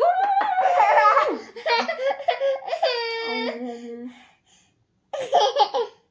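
A toddler squealing and laughing in play, in high-pitched bursts with a short pause near the end, mixed with a woman's playful vocal sounds.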